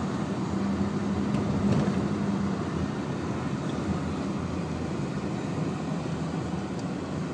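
Steady road noise of a car driving at highway speed, heard from inside the cabin: an even rumble of tyres and engine. A low hum stands out over it for the first two seconds or so.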